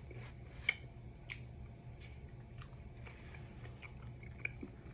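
A person chewing a mouthful of oatmeal raisin cookie: faint, soft mouth sounds with a few small clicks.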